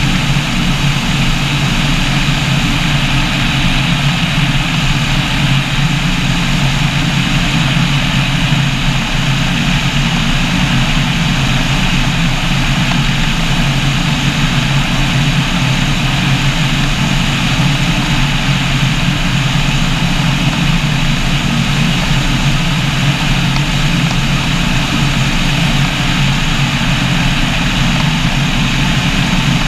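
Microlight trike's engine and pusher propeller running steadily at cruise power in flight, with wind rushing past the microphone.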